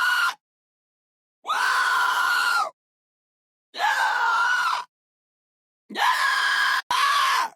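Pig squealing: a run of loud, high-pitched squeals, each a little over a second long, with dead silence between them. The last one breaks off briefly and goes on.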